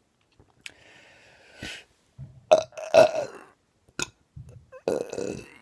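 A person burping: a loud belch about halfway through, then another near the end, with faint breathy noise before the first.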